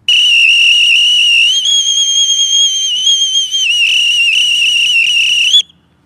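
Bosun's call (boatswain's pipe) blown in a trill, the tongue fluttering against the roof of the mouth: one long high whistle of about five and a half seconds with a slight wobble. The pitch steps up about a second and a half in and drops back a little after three and a half seconds, then the whistle cuts off.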